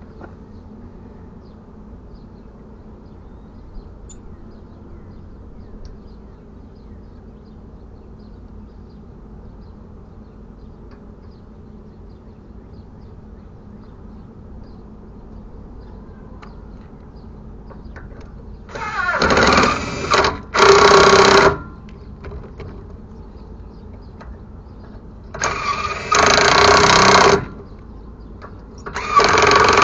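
A power tool run in short bursts of one to two seconds: two close together past the middle, another a few seconds later and a last one near the end, over a faint steady low background.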